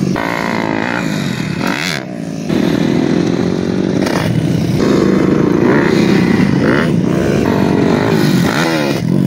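Dirt bike engines revving hard, the pitch climbing and falling as the throttle is worked on a steep hill climb. The engine sound dips briefly about two seconds in, then runs louder and higher.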